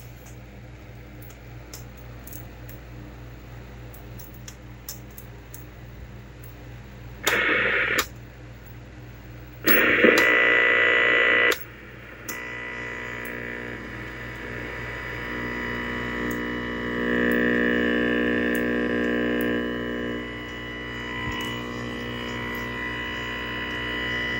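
Static hiss from the speaker of a 1978 Hitachi portable colour TV, coming in two loud bursts about seven and ten seconds in as a front-panel knob is turned. From about twelve seconds in it gives way to a steady buzz with several tones, over a low hum and faint crackles.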